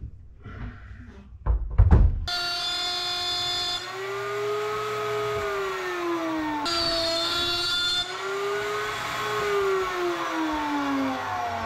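A few knocks and thuds of a wooden board being handled on a router table, then from about two seconds in, background music of sustained, slowly gliding tones.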